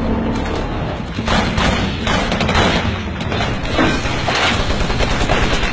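Battle gunfire: volleys of rapid shots and booms over a steady low rumble, growing dense from about a second in.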